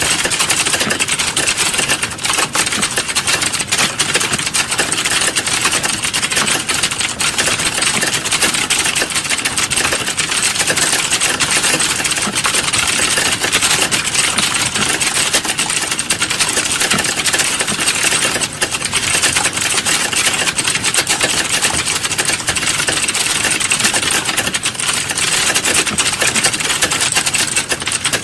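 Computer keyboard typing: a steady, fast run of keystroke clicks.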